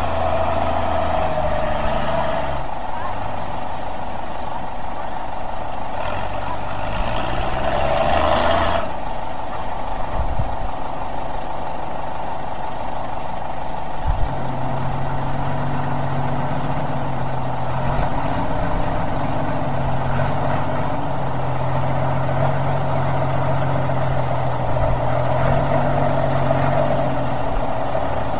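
Tow truck engine running, its note rising briefly about six to eight seconds in and then holding steady, with a single knock about fourteen seconds in.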